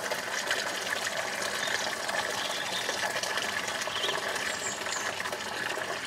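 Bath tap running steadily, water pouring into a roll-top bath as it fills.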